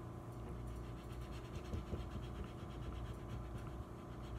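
Faint, quick rubbing and scratching of a cotton swab scrubbing excess white paint fill off the engraved markings of an AR-15 lower receiver.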